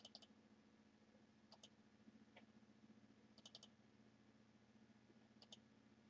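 Faint computer mouse clicks against near-silent room tone, some single, some in quick pairs, with a fast cluster of three about halfway through.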